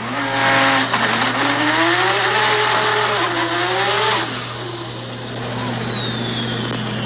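Nissan GT-R drag car's twin-turbo V6 accelerating hard, its pitch climbing with a couple of drops at the shifts, then easing off about four seconds in. A high whine then falls steadily in pitch.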